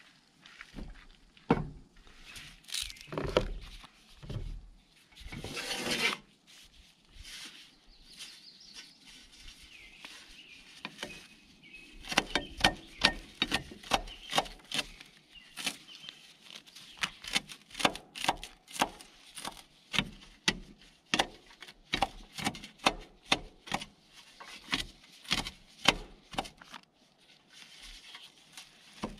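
A knife chopping fresh dill and rosemary on a metal baking tray: a steady run of sharp taps, a little over two a second, through the second half. Before that come a few thumps and rustling as vegetables are moved on the table.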